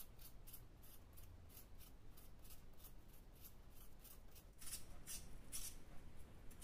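Handheld peeler scraping the skin off a raw potato in quick repeated strokes, about three a second. The strokes grow louder in the last couple of seconds.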